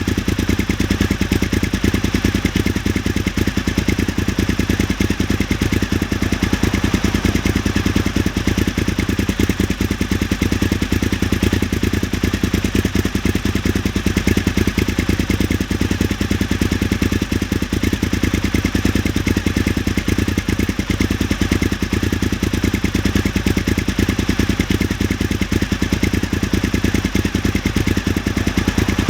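Suzuki SV1000 S's 90-degree V-twin engine idling steadily through open, nearly straight carbon exhaust pipes, with an even rapid pulse.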